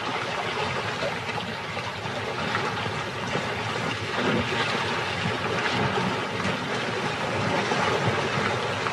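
Water splashing and churning as a herd of buffalo wades through a muddy pool, a continuous wash of sound.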